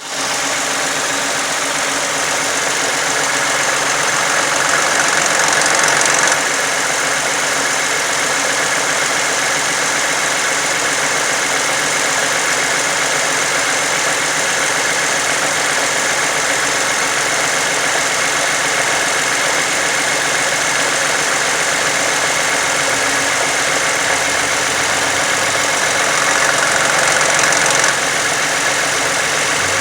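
2009 Toyota Sienna's 3.5-litre V6 engine running with the odd noise the owner calls funny: a steady hissing, whirring sound that swells over the first several seconds and drops off suddenly, then swells and drops again near the end.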